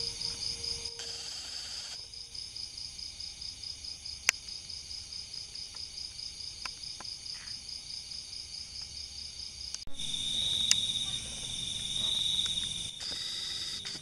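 Night insects: a cricket's steady, evenly pulsing high chirp, with a single sharp click about four seconds in. About ten seconds in it gives way to a steadier insect drone, a little lower in pitch, that swells and fades.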